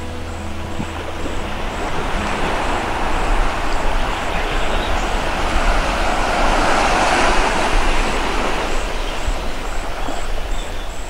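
Small surf washing onto a sandy beach and around the legs of someone wading into shallow sea, the wash swelling louder midway and easing off near the end, over a steady low rumble.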